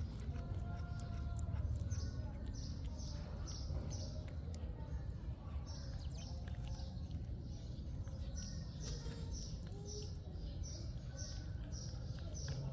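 A small bird chirping over and over in runs, about two short, high chirps a second, over a steady low rumble.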